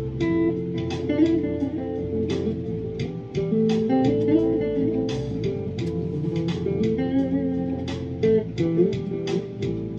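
Squier junior Stratocaster-style electric guitar being played, picked notes ringing out one after another over sustained lower notes.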